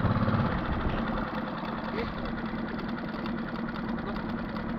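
Boat outboard motor idling steadily, a constant low rough drone.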